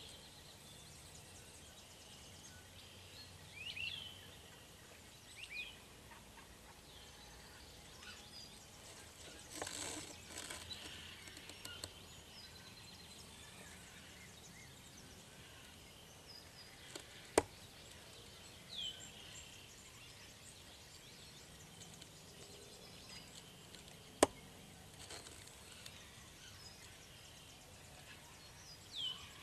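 Quiet outdoor ambience with scattered short chirping bird calls, a brief rush of noise about ten seconds in, and two sharp clicks about seven seconds apart, the loudest sounds present.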